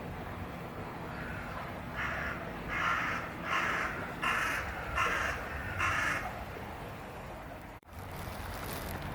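A run of six short, harsh animal calls, about one every three-quarters of a second, over a steady low background rumble.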